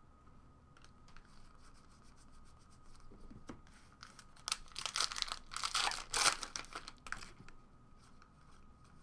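Faint rustling, then, about four seconds in, a foil trading-card pack is torn open: the foil wrapper crinkles and tears in a run of noisy bursts for about three seconds, loudest in the middle.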